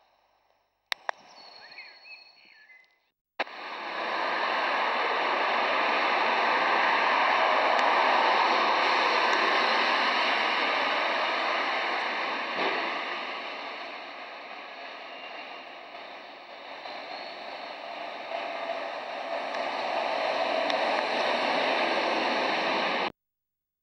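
A few faint bird chirps in a quiet street. About three seconds in, a sudden cut to a steady rush of road traffic noise that swells, eases and swells again as a bus with a trailer drives past close by.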